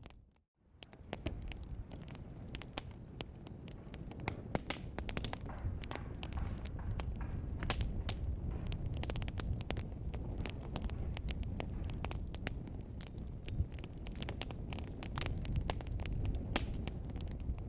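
Wood fire burning in a fireplace, crackling with many sharp pops over a low steady rumble of flames. About half a second in the sound drops out briefly and fades back in.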